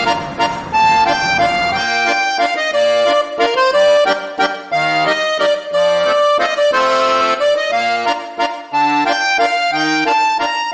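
Background music: an accordion-like melody of sustained reed notes.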